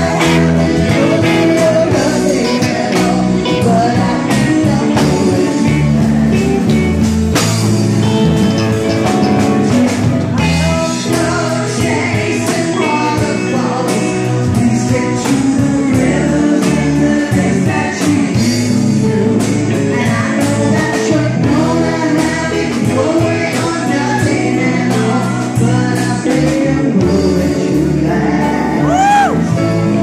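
Live band playing a song, with women singing lead over electric guitars, keyboard and drums.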